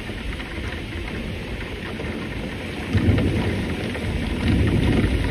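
Typhoon wind and heavy rain: a steady rushing noise, with two louder low rumbling surges about three seconds in and near the end.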